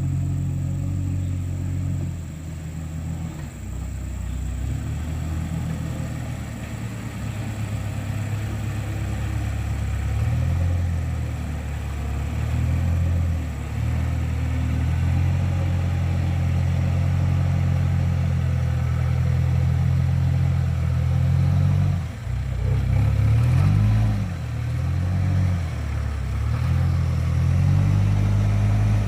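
Heavy diesel engine of the recovery machinery running hard under load, its pitch rising and falling with the throttle about a third of the way in and again several times near the end.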